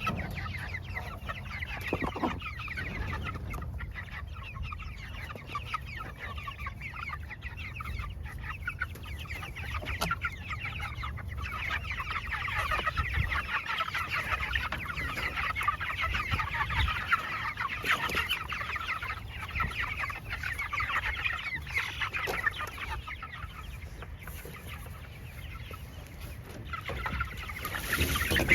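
A flock of young meat chickens clucking and cheeping, a dense, continuous chatter that grows busier about halfway through.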